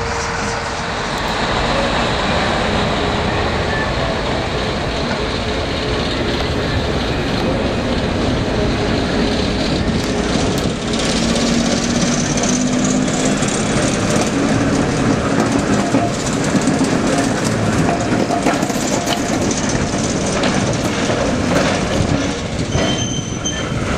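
Trains moving on track: wheels clattering over the rails with clicks and brief squeals, and a small diesel shunting locomotive running as it moves through the yard.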